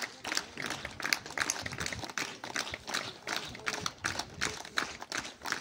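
A fast, irregular run of light clicks and taps, several a second.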